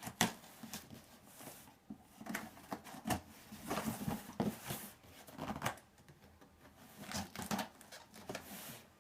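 A cardboard shipping box being opened by hand: irregular rustling, scraping and clicking of cardboard and packaging.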